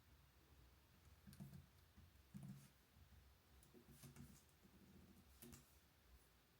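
Near silence in a small room, with a few scattered faint clicks and soft knocks.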